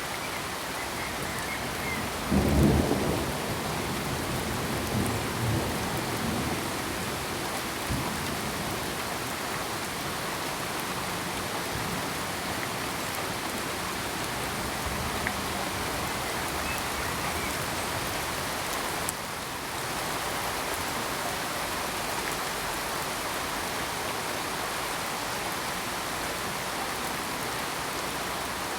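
Steady heavy rain hissing, with a low rumble of thunder about two seconds in that dies away over a few seconds.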